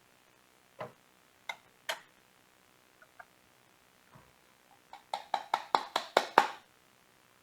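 Light knocks and clicks from handling coffee-making gear: a few separate knocks, then a quick run of about eight taps near the end.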